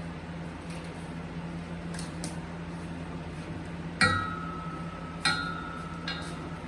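Three metallic clanks from steel pieces being handled, each leaving a clear ringing tone, the first about four seconds in and the loudest.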